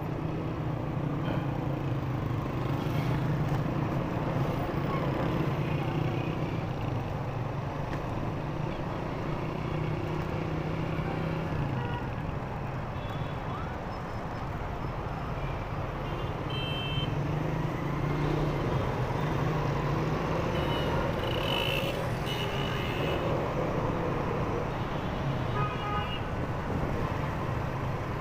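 Honda motorcycle engine running steadily while riding in city traffic, under road and wind noise. A few brief horn toots from other vehicles come in the second half.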